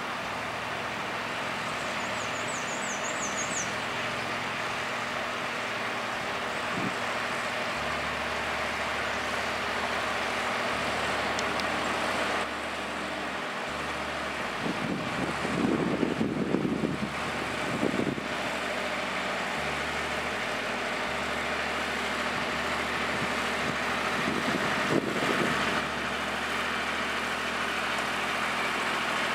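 Terraplane TD38 compact tractor's diesel engine running as it drives along a dirt driveway, growing a little louder as it approaches. Louder rough rumbling surges come a little past the middle and briefly again later.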